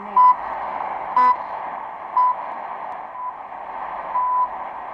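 Top-of-the-hour time signal pips from Radio New Zealand International heard over shortwave through a Degen DE1103 receiver's speaker: four short high beeps a second apart, then a longer beep about four seconds in, marking the hour. A steady shortwave hiss runs under them.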